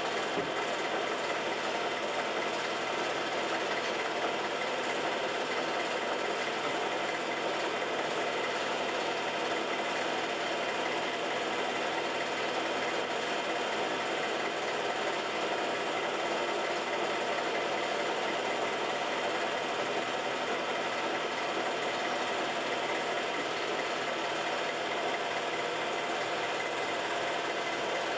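Film projector running steadily, its motor and film mechanism giving an even mechanical whir and clatter.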